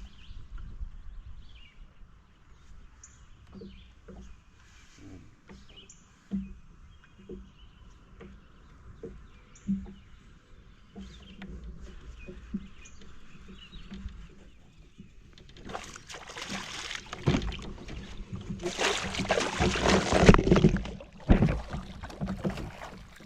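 Knocks and bumps on a fishing kayak with faint bird chirps over a low rumble, then about six seconds of loud water splashing that peaks near the end.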